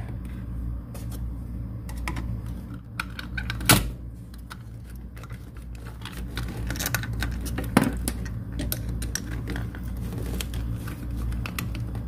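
Small clicks, taps and scrapes of a refrigerator compressor's tight cover being pried and worked off by hand, with two sharper knocks about four and eight seconds in, over a steady low hum.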